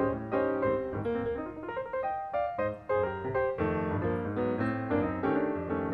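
Background piano music: a steady run of keyboard notes at an even pace.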